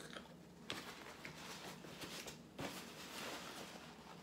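Faint rustling of a paper napkin as hands and mouth are wiped, with a few small clicks and one soft knock about two and a half seconds in.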